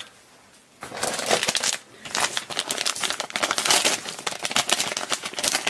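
Crinkly plastic blind-bag packet rustling and crackling as it is handled, starting about a second in and going on irregularly.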